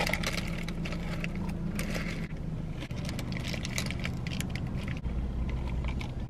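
Paper sandwich bag crinkling and rustling in the hands while eating, over the steady low hum of the car cabin; a deeper rumble joins about five seconds in.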